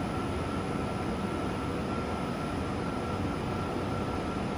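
Wave soldering machine running: a steady mechanical noise with a thin, constant high whine.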